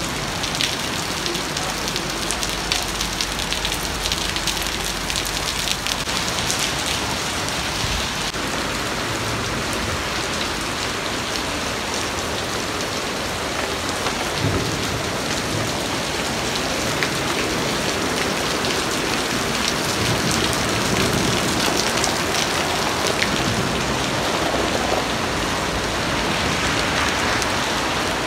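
Steady rain falling on wet concrete paving and grass: a dense, even hiss with the fine patter of drops splashing.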